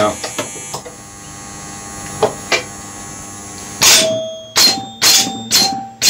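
Electromechanical pinball machine scoring: a few light relay clicks, then from about four seconds in its chime bells ring five times, roughly twice a second, each strike ringing on as the score reels step up. This is the sign that the game is scoring points again.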